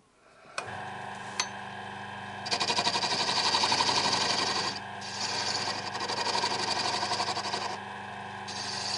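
Wood lathe motor starting up and running with a steady hum. From about two and a half seconds in, a tool cuts the spinning wooden blank, a loud, rapidly pulsing scraping that comes in three stretches with short breaks, facing the end flat.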